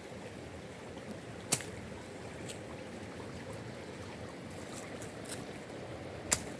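Steady rush of flowing water, like a stream, with two sharp clicks about five seconds apart.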